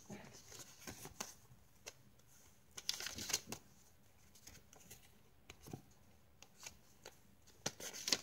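Paper pages and cards of a handmade junk journal being turned and handled: soft, scattered rustles and light taps, busiest about three seconds in and again near the end.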